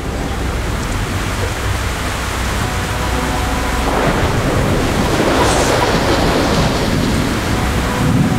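Thunderstorm: steady heavy rain with rumbling thunder, the thunder swelling louder about four seconds in.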